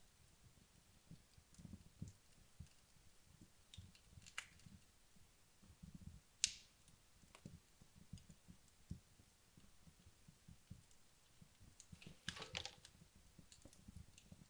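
Wood logs burning down in a fireplace, faint and sparse: scattered soft crackles, one sharp pop about six and a half seconds in, and a short flurry of crackling near the end.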